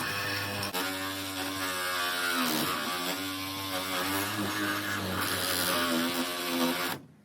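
Sawzall reciprocating saw cutting through a steel Toyota lug wrench, its motor pitch wavering as the blade loads and frees up in the metal. It stops abruptly near the end.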